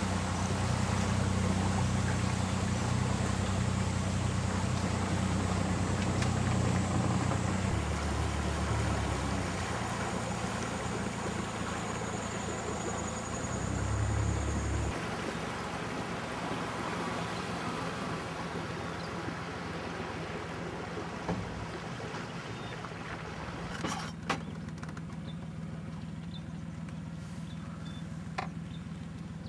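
Small river boat's motor running steadily with a high whine as the boat travels, its note shifting a couple of times, then throttled down about halfway to a quieter low hum. A few sharp clicks near the end.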